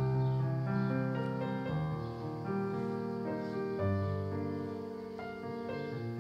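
Background piano music: held chords, with a new bass note about every two seconds.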